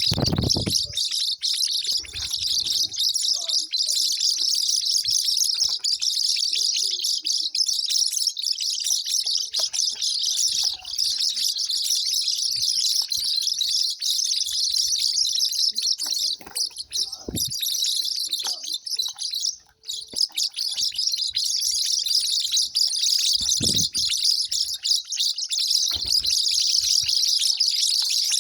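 Continuous dense, high-pitched chirping of birds, with a few short low thumps scattered through it.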